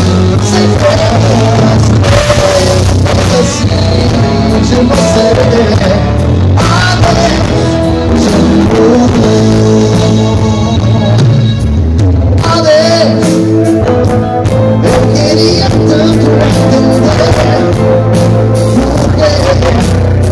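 Loud live pop-rock band music over a concert PA, heard from the audience: drums, bass guitar and electric guitar with a lead singer.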